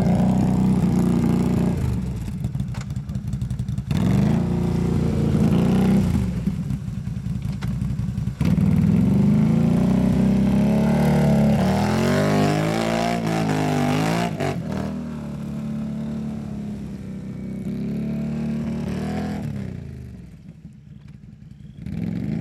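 Can-Am Renegade ATV on Tatou 4S rubber track kits, its engine revving up and down as it churns through mud and water. The sound jumps abruptly a few times at cuts between shots and eases off near the end.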